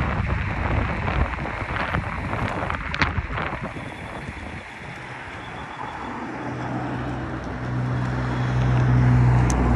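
Wind rushing over the microphone with passing road traffic, then about two-thirds of the way in a steady low engine hum sets in and grows louder.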